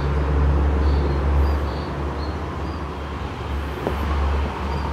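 Steady low rumble of background noise, with a few faint short high chirps over it.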